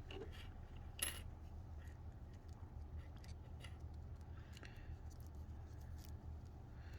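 Faint small clicks and taps of laptop case parts being handled during reassembly, with one sharper click about a second in, over a steady low hum.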